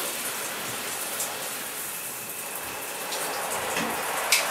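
Shower water spraying steadily from a just-installed high-efficiency shower head, running because the water supply was never turned off.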